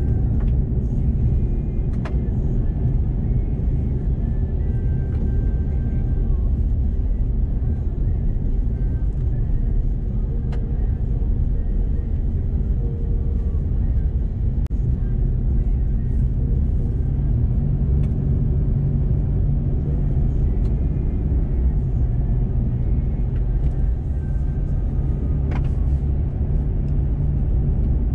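Steady low rumble of road and engine noise inside a Chevrolet Colorado Z71 pickup cruising at a constant speed, with a few isolated sharp ticks.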